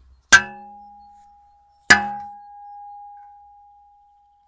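Restored Soviet-made heart-shaped steel spade blade struck twice with a piece of metal, each blow a sharp clang followed by a long, clear ring at one steady pitch. The sustained ring is the sign of good, hard steel.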